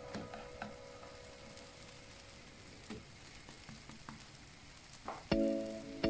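A crêpe sizzling faintly in a hot pan, with a few light clicks of a slotted spatula against the pan. About five seconds in, background music comes in with a few loud chords.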